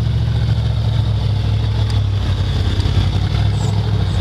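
Engine of a tube-frame rock crawler buggy running steadily under load as it crawls up a rock mound, a low, even engine note.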